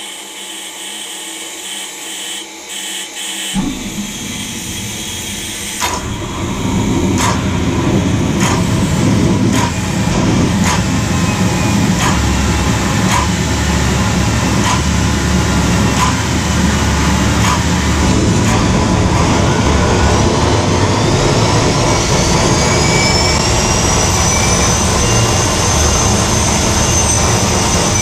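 TS-20B aircraft turbo starter, a small gas turbine, being started on gas. Its combustion catches about three and a half seconds in with a sudden low rumble that grows louder around six seconds. Over it a regular clicking of the spark-plug igniter comes about once a second, and from about twenty-one seconds a whine rises in pitch as the turbine spools up toward idle.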